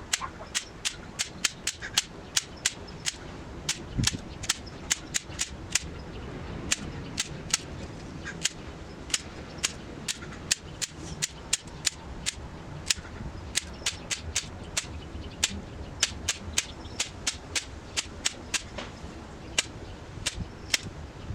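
A long run of sharp, snapping clicks, about two to three a second at an uneven pace, over a low steady background, with one duller thump about four seconds in.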